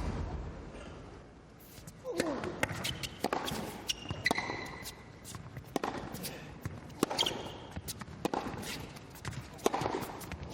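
Tennis rally: sharp racket strikes and ball bounces about once a second, with a brief shoe squeak about four seconds in.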